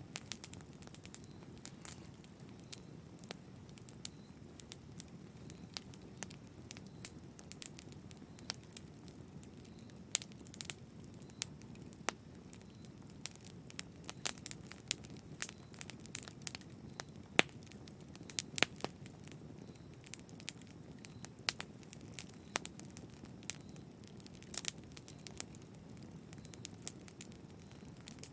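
Wood fire crackling in a fireplace: irregular sharp pops and snaps, a few much louder than the rest, over a steady low rush of burning.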